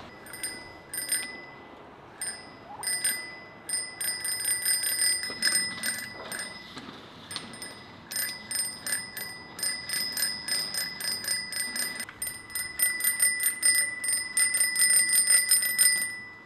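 Children's bicycle handlebar bell rung over and over. A few separate rings come first, then long quick trills of strikes, the fastest and loudest near the end, before it stops.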